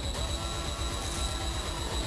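Film soundtrack with a fast, even low pulse of about nine beats a second under a steady high tone.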